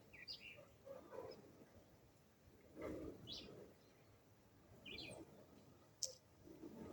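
Birds calling faintly: a few short high chirps spread through, with some lower calls between them. A single sharp click comes about six seconds in.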